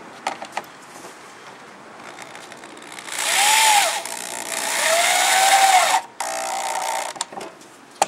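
Power drill driving a wood screw into a pine board. A short run of the motor about three seconds in, then a longer run that speeds up and slows, then a briefer, lower whir.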